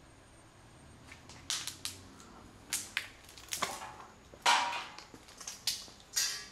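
Footsteps crunching over debris scattered on a hard floor, about a dozen irregular crunches at a slow walking pace, the loudest about halfway through.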